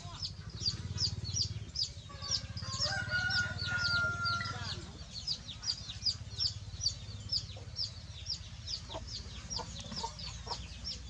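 Chicks peeping over and over, short falling high chirps about three a second, with an adult chicken giving one drawn-out call from about two seconds in. A steady low hum runs underneath.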